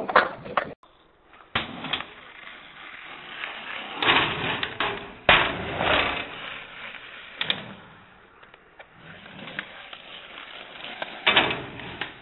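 Skateboard wheels rolling, with several sharp clacks of the board popping and landing spread through.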